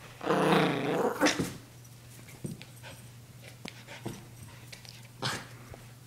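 Maltese puppy growling for about a second near the start, followed by a short sharp sound; a few light knocks and rustles follow as it plays with a toy.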